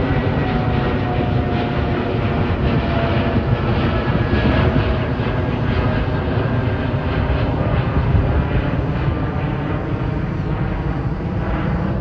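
Boeing 787 Dreamliner climbing out after takeoff: the steady noise of its two jet engines at climb power, heaviest in the low end, with faint tones sliding slowly down in pitch as it flies away.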